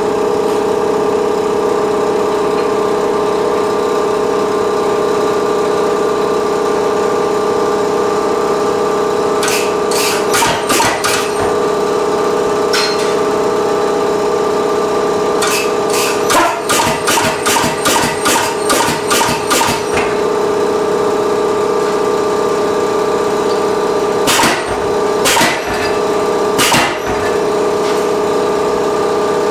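Hammer blows on red-hot carbon steel on a power hammer's die: a quick run of blows about ten seconds in, a longer rapid run of about three a second in the middle, then three single blows near the end, all over a steady hum.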